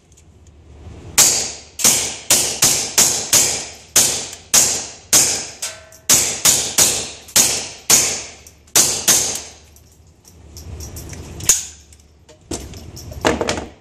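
Short-barreled AR-style rifle fired semi-automatic in a quick string of about twenty shots, two to three a second, then a pause and a couple more single shots near the end, each shot ringing briefly off the shed walls.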